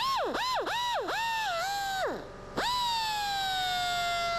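Die grinder with a thin 3-inch cut-off wheel, triggered in several quick bursts, each whining up in pitch and winding down, then held on with its whine sagging slowly in pitch as it cuts sheet steel.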